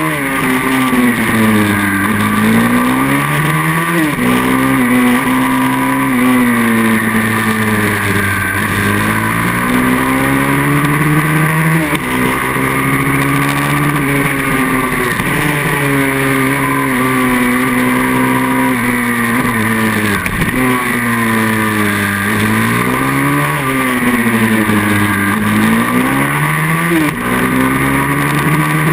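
Pit bike's small single-cylinder engine at racing speed, its revs repeatedly climbing and dropping through gear changes and corners, heard from on board the bike.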